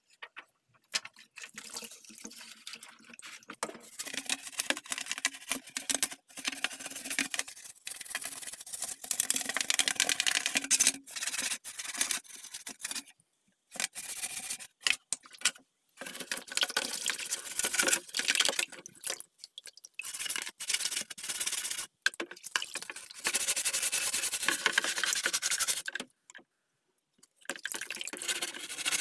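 A brush scrubbing keyboard parts in repeated stop-start strokes lasting a second to a few seconds each, with short gaps and a silent break near the end.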